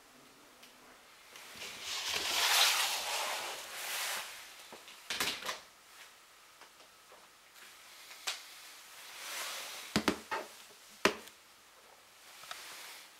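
Gakken New Block plastic toy pieces being handled on a hard floor: two drawn-out scraping swells and several sharp plastic clicks and knocks, a cluster of them around ten seconds in.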